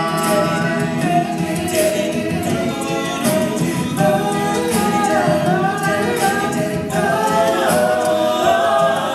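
All-male a cappella group singing wordless backing chords that shift every second or so, with a faint percussive beat running under them.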